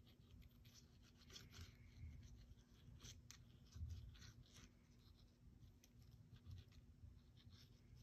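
Near silence, with faint light scratching and ticking as the tip of a squeeze bottle of liquid glue is drawn and dabbed along the back of a paper die cut.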